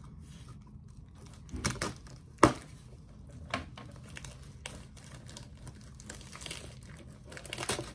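Rustling and crinkling of a mailing package being handled and opened, with a few sharp clicks and taps; the loudest comes about two and a half seconds in.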